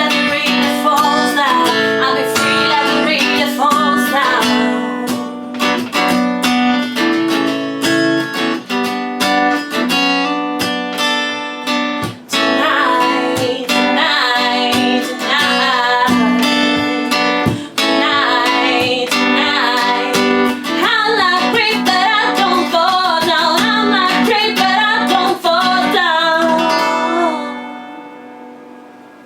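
Acoustic guitars strumming and picking chords, with a wavering melody line over them in the second half; the music ends about 27 seconds in and the last chord dies away.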